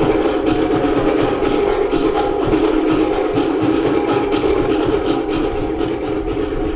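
Cook Islands drum ensemble playing a fast ura pa'u drum-dance rhythm: rapid strokes on wooden pate slit drums over a deeper skin-drum beat.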